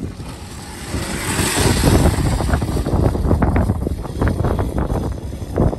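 An upgraded Razor MX electric pit bike climbing a steep dirt hill, heard as a low rumble with scattered knocks and rattles, mixed with wind on the microphone. The rumble grows louder about a second in.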